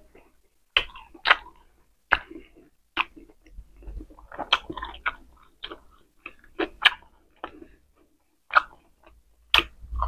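A person chewing mouthfuls of pork steak and rice, with irregular smacks and clicks of the mouth and short silent pauses between them.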